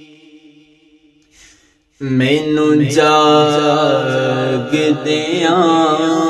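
A man singing a Punjabi devotional kalam. A held note fades away into a short pause, and about two seconds in he starts the next line ("mainu…") with a wavering, ornamented melody over a low steady drone.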